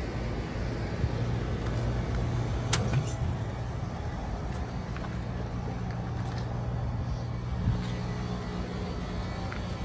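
Outdoor air-conditioning condensing unit running: a steady electrical hum from the compressor under the whoosh of the condenser fan, with a couple of faint clicks.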